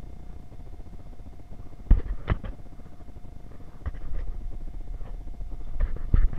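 Handling noise on a hand-held action camera: a few sharp knocks and rubs against the camera about two seconds in, again near four seconds and just before the end, over a low muffled rumble and a faint steady hum.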